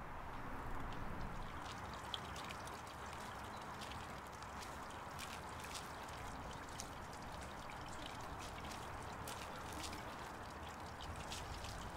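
Steady rushing background noise, like running water, with faint scattered ticks.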